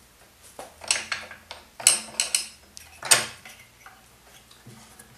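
Steel flat bar being set against a mitre saw's metal table and fence: a run of sharp metallic clanks and clicks, loudest about two and three seconds in.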